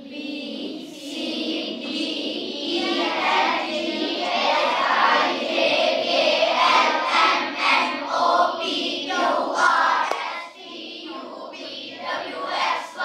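A class of girls chanting the English alphabet together in unison, in a sing-song recitation of the letters A to Z.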